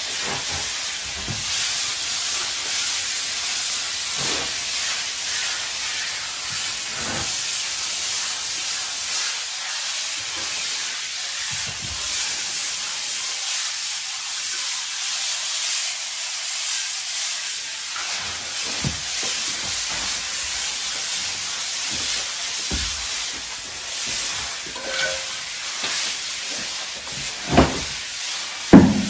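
Plastic hand float rubbing over fresh cement render, a steady gritty scraping hiss: the finishing pass that smooths the plaster coat. A few light knocks come along the way, with a sharper knock near the end.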